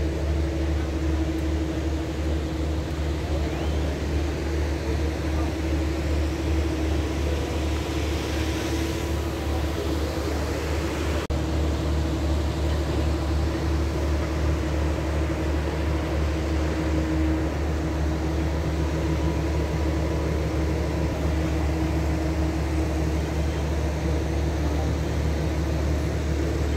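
Steady low mechanical drone with a constant hum tone over it, unchanging throughout, with one brief dip and click about eleven seconds in.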